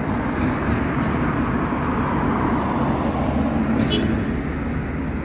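Road traffic noise: a car driving along a city street, a steady rush of tyre and engine sound that swells slightly midway.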